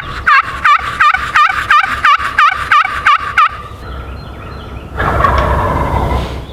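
A wild turkey yelping: a series of about ten evenly spaced notes, about three a second. Near the end comes a burst of rushing noise lasting about a second and a half.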